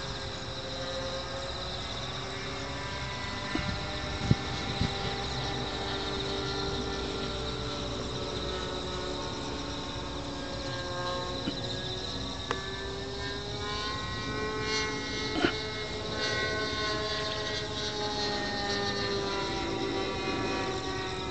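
RC model airplane engine, fed by an onboard fuel pump, running at speed in flight. Its whine slowly rises and falls in pitch as the plane moves around the sky.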